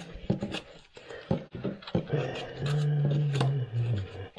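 Scattered clicks and scrapes of a homemade pipe tool turning the cartridge retainer inside a Moen faucet, then a low drawn-out groan lasting about two seconds that drops in pitch near the end.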